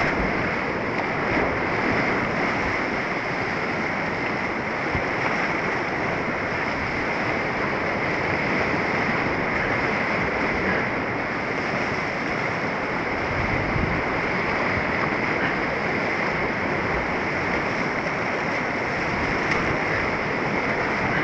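Whitewater rapids rushing and churning around a kayak's hull, heard up close from the boat as a steady, unbroken rush of water.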